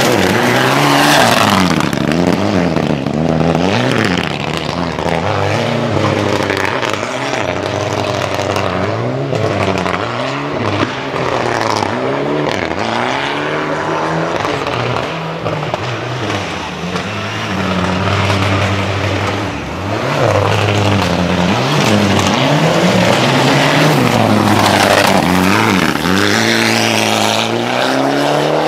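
Rally car engine run hard through corners, revving up and dropping back over and over as the driver goes on and off the throttle and shifts gears.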